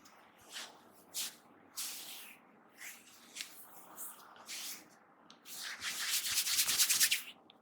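Hands rubbing and brushing over hair and scalp in a head massage. Several brief swishes come first, then, near the end, a louder run of rapid rubbing strokes.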